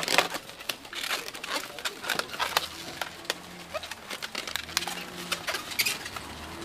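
Latex modelling balloons squeaking and rubbing in a run of short, irregular squeaks as they are twisted and tied.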